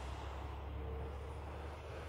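Road traffic on a highway, heard as a steady low rumble.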